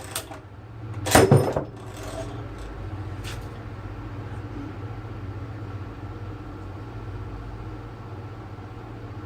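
A slide hammer jerked against a handle welded to a washing machine drum's bearing, giving one loud metal clang about a second in and a faint click a couple of seconds later, over a steady low hum.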